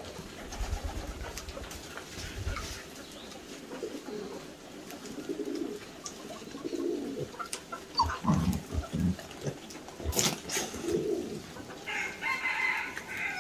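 Several short, low animal calls spread through the middle of the clip, then a higher-pitched call near the end, with scattered sharp clicks.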